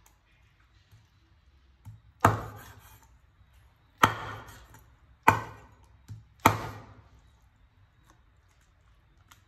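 Knife chopping through a skinned frog on a wooden cutting board: four hard chops, the first about two seconds in and the rest roughly a second or so apart, each dying away quickly, with a couple of light taps between.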